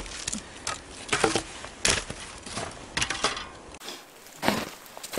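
Bow saw cutting through a dead branch in rhythmic rasping strokes, about one every half second. Near the end come a few sharper knocks of a different kind.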